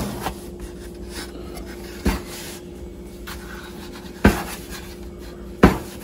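A metal bench scraper scraping and pushing a ball of bread dough across a floured silicone mat, with four sharp knocks as the blade hits the counter.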